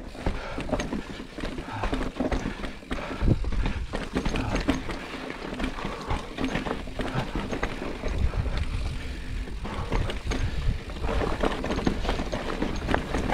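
Giant Reign 29 full-suspension mountain bike riding down rough singletrack: tyres on dirt and rock, with irregular knocks and rattles from the bike over bumps and a steady low rumble underneath.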